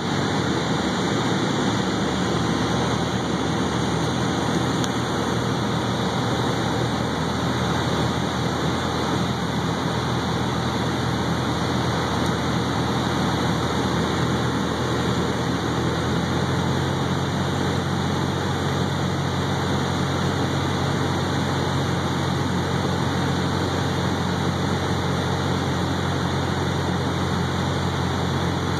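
A light plane's engine and propeller drone steadily, heard inside the cockpit with a constant rush of air noise during the final approach to landing. A little past halfway through, the low drone changes slightly.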